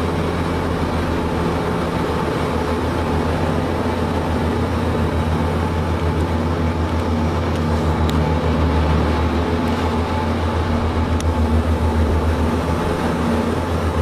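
Steady low drone of aircraft engines heard inside the cabin, with a constant rushing hiss of air over it.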